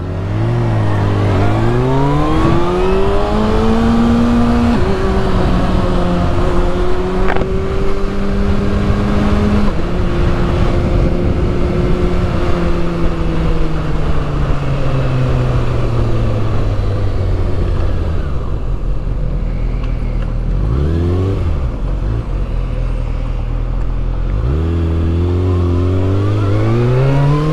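Kawasaki ZX-6R inline-four engine under way, over steady wind noise: it revs up and shifts up in the first few seconds, holds a steady note, then falls away slowly as the bike slows. There are a couple of short throttle blips about twenty-one seconds in, and it pulls away again near the end.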